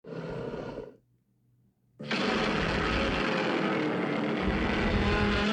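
Godzilla film sound effect: a short, loud, rough burst, then after a second's pause a long, loud, rough sustained sound.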